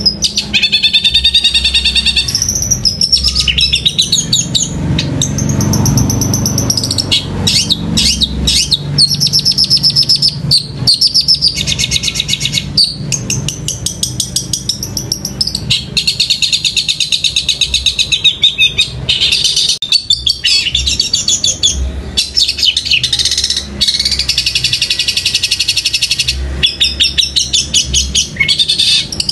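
Caged long-tailed shrike (cendet) singing loudly and without let-up: fast chattering runs of repeated high notes with short breaks. The song is laced with rapid-fire mimicry of tree sparrow calls.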